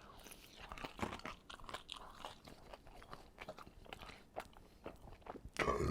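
Close-miked eating: a person chewing and crunching food with many short, irregular wet mouth clicks, and a louder burst of chewing just before the end.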